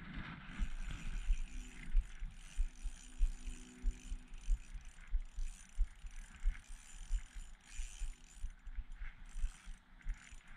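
Small spinning reel on an ice-fishing rod being cranked, its gears and anti-reverse clicking, with repeated dull low bumps.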